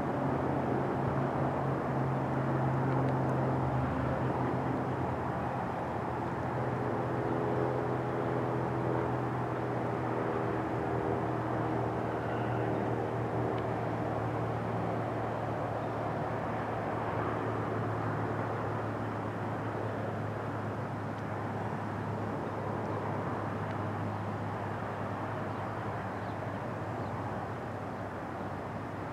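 Twin Pratt & Whitney Canada PW306D1 turbofans of a Cessna Citation Latitude running at taxi idle as the jet taxis and turns to park, a steady distant rumble with a low hum that eases off slightly toward the end.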